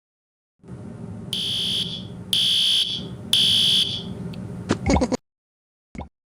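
Fire alarm sounding three high beeps about a second apart, the temporal-three evacuation pattern, over a low hum. A few sharp clicks follow near the end before the sound cuts off.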